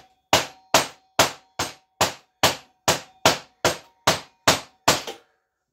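A mallet knocking a tight zinc-plated part on a Honda ST70's drum brake plate: twelve even knocks, about two and a half a second, each with a short metallic ring, stopping about five seconds in. The zinc plating has added thickness, making it a tight fit.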